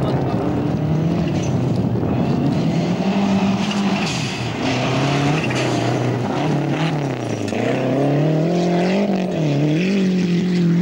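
Rally car engine driven hard, its revs rising and falling again and again as it lifts off, changes gear and accelerates through the course. There is a burst of hiss about four seconds in, and the revs dip sharply and climb again near the end.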